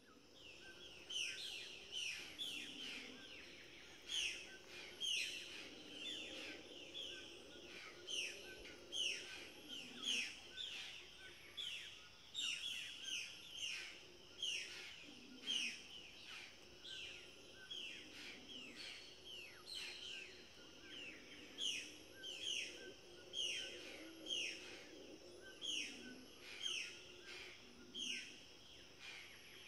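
Tropical forest birds calling: many short, falling chirps, one to two a second, overlapping one another, over a faint low hum.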